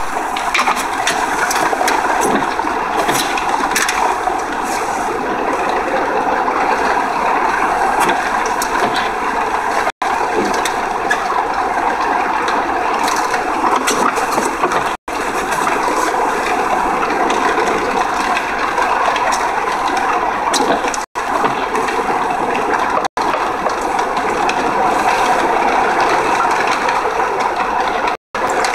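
Steady rushing road and engine noise inside a moving 2003 Honda Accord V6. It cuts out to total silence for an instant about five times.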